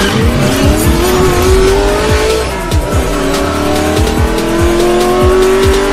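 Intro music with a steady beat under a racing-car engine sound effect that revs up, drops back about two and a half seconds in, and revs up again.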